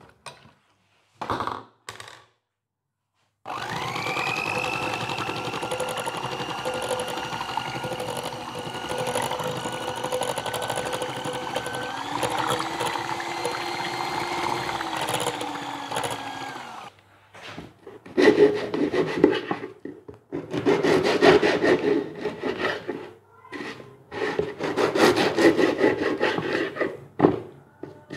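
Electric hand mixer starting about three seconds in and running steadily as it whisks eggs and milk in a glass bowl, a motor whine that shifts in pitch about midway and cuts off after about seventeen seconds. Then a knife sawing through stale baguette on a wooden cutting board, in repeated bursts of strokes.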